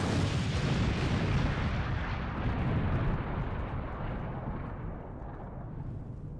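A large explosion: a sudden deep boom that rolls on as a long rumble, fading slowly.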